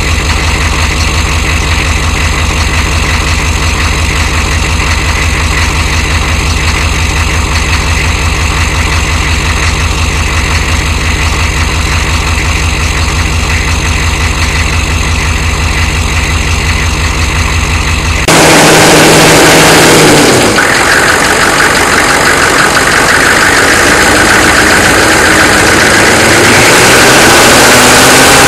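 1993 Chevrolet 6.5L turbo-diesel V8 idling cold, started without its block heater, with a steady rhythmic diesel clatter and an engine knock of some kind that the owner points out. About two-thirds of the way through, the sound turns suddenly louder and noisier.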